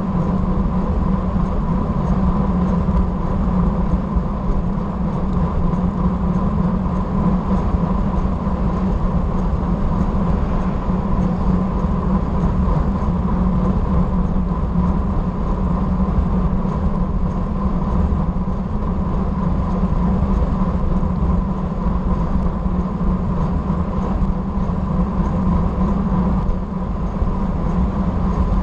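Steady rush of wind and tyre-on-tarmac noise from a road bicycle travelling at about 30 mph, heard through an action camera's microphone, with a thin steady whine running under it.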